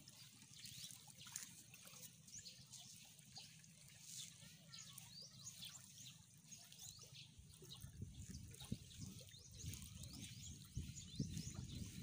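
Faint trickling and lapping of shallow seawater among rocks in a tide pool, with many small scattered ticks.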